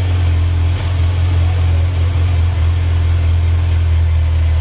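Kawasaki Z900's inline-four engine idling steadily, freshly started.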